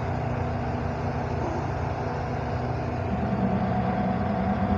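Steady low drone of running machinery, with a stronger hum joining about three seconds in.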